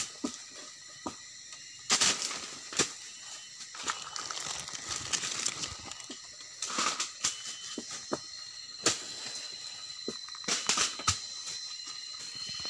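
Dry fallen leaves rustling and crackling as hands rummage through them for jengkol pods and seeds, with sharp irregular clicks and snaps of pods and twigs being handled. A faint steady high whine comes in about eight seconds in.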